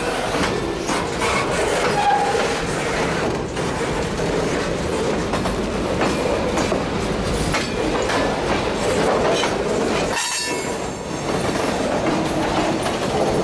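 Freight cars rolling past close by: the steady rumble of steel wheels on the rails, with a run of clicks as the wheels cross rail joints.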